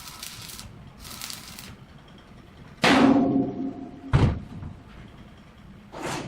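Heavy steel being struck: three loud clangs, the first ringing on briefly, about three, four and six seconds in. Two short hissing bursts come before them.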